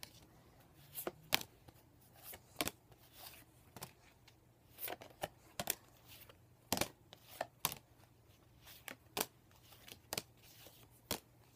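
Pokémon trading cards handled and flipped through one at a time: irregular soft clicks and flicks of card against card.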